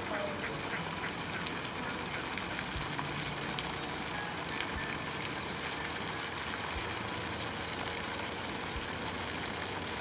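A duck quacking over a steady low background hum, with a few high bird chirps about halfway through.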